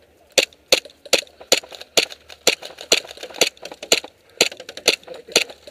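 Gas airsoft pistol firing single shots at a steady pace, about two sharp cracks a second.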